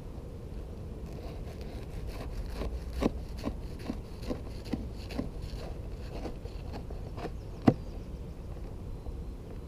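Small wood campfire crackling, with scattered irregular pops and clicks over a low steady rumble; the sharpest pop comes about three-quarters of the way through.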